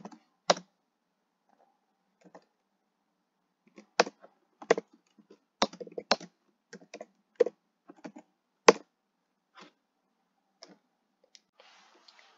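Keystrokes on a computer keyboard, typed in short irregular runs, with a pause of about three seconds soon after the start and fewer, fainter keystrokes in the last few seconds.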